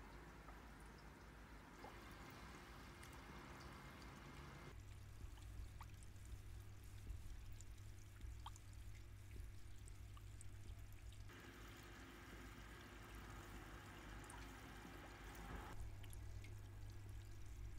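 Faint trickling and dripping water with a few small drip ticks, barely above room tone. A low steady hum comes and goes under it.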